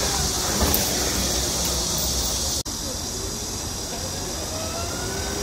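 DNA Motors eCiti electric scooter passing over a speed bump, its motor whine rising in pitch, with a couple of light knocks about half a second in as the newly replaced front shock absorber takes the bump. A sudden cut a little past halfway leads into a second pass with the whine rising again.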